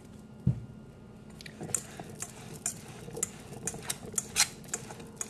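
A metal utensil stirring a thick nut-pâté mixture in a metal mixing bowl, clinking and scraping against the bowl about twice a second from about a second and a half in. A single dull thump comes about half a second in.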